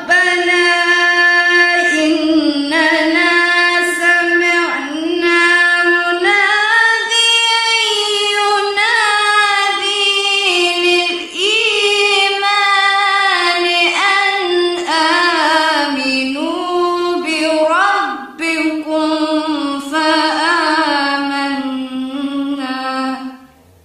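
A woman's voice reciting the Qur'an in a slow, melodic tajweed style: one long, almost unbroken phrase with ornamented turns in pitch and only brief dips about 11 and 18 seconds in, stopping just before the end.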